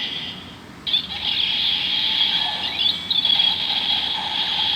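Kamen Rider Build toy belt playing its electronic finisher sound effects for the Light and Octopus Full Bottle combo: high, thin electronic tones with a few pitch sweeps. The sound dips just after the start and comes back about a second in.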